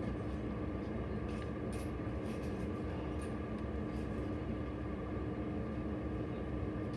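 Steady room noise with a constant low hum, and a few faint light scratches in the first few seconds from a toothbrush brushing copper patina over soldered seams.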